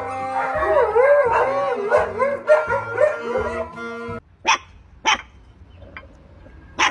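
A shaggy wirehaired dog howls along to music in wavering rising-and-falling calls for about four seconds. Then come three short, sharp puppy yips.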